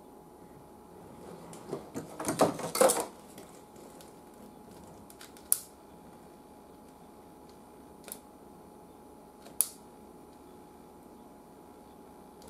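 Small metal tools and parts clattering and clicking on a workbench while a fuse is wired in: a loud burst of rattles about two seconds in, then three single sharp clicks spread through the rest.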